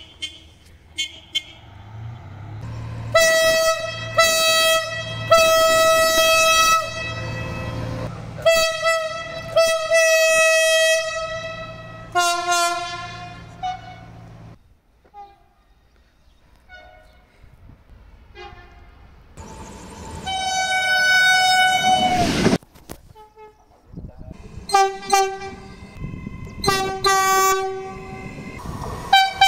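Train horns sounding again and again over the rumble of a train. A string of blasts fills the first half, the last one falling in pitch as the train goes by. After a lull come one long blast and a run of short toots.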